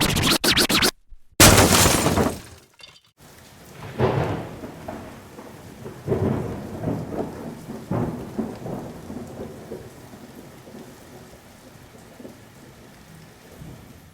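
Thunder with rain: a loud, stuttering crash in the first three seconds, then rolls of thunder swelling about every two seconds and dying away over a steady hiss of rain.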